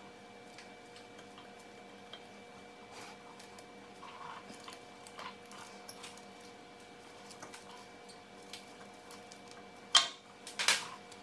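Rear brake caliper and pads being handled by hand: scattered light clicks and taps of the parts, then two louder sharp knocks close together near the end.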